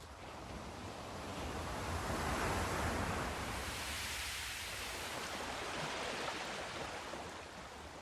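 Sea surf: a wave swells and breaks, loudest about two to three seconds in, then washes in with a hiss and fades near the end.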